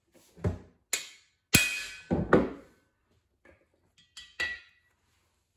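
Hammer blows on a cam bearing driving tool, knocking a cam bearing into the cam bore of a Shelby aluminum FE block: about six or seven strikes, the heaviest near the middle, several with a short metallic ring.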